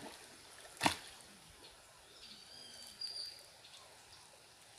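One sharp knock about a second in, then a thin, high whistled call, like a bird's, lasting about a second between two and three seconds in, over a faint quiet background.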